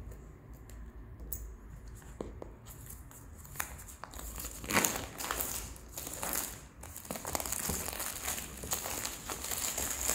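Clear plastic shrink-wrap being torn and peeled off a cardboard box, crinkling. A few light clicks and scratches come first as the film is picked open, then the crinkling grows dense and loud from about three seconds in.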